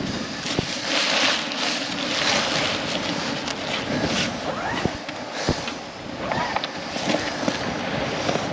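Wind and sea rushing past a sailboat under way, with wind buffeting the microphone. A few short knocks stand out, about half a second in and twice around five seconds in.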